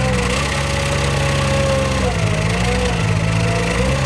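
Aquatic weed-harvester workboat's engine and hydraulic system running steadily while its boom-mounted sickle-bar cutter trims tree limbs. About two seconds in the pitch sags for over a second, then recovers.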